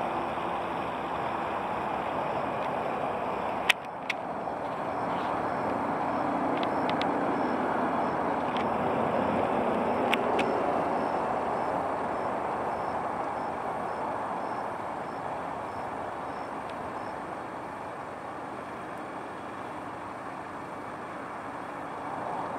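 Steady rushing rumble of a motor vehicle that swells over several seconds and then slowly fades. A sharp click comes about four seconds in.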